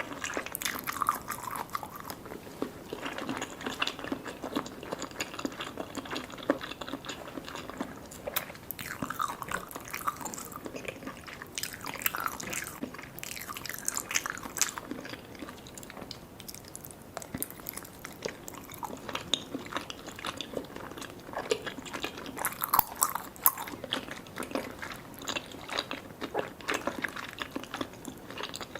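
Close-miked chewing of soft, sticky Vietnamese jellies and pandan layered cake: a steady run of wet, irregular sticky clicks and smacks.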